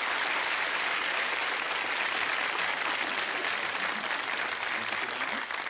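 Studio audience applauding steadily, the clapping thinning out near the end.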